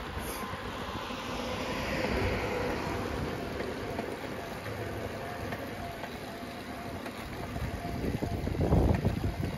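Wind buffeting the microphone of a camera mounted on a moving bicycle, a steady rushing noise with low gusts that get stronger about eight to nine seconds in.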